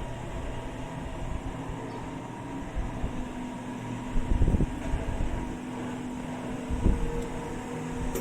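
Steady mechanical hum with a faint held tone, broken by two brief low rumbles, about four and a half and seven seconds in.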